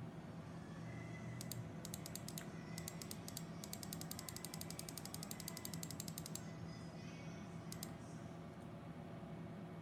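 Faint clicking at a computer: a few quick clicks, then a fast, even run of about ten clicks a second for some three seconds, then two more clicks, while the security footage is stepped through. A low, steady hum lies beneath.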